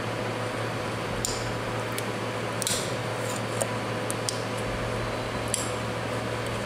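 Metal spatula scraping and ticking against a 3D printer's glass bed as it pries off a printed keychain: a few short, sharp scrapes, the strongest about two and a half seconds in, and scattered light ticks, over a steady low hum.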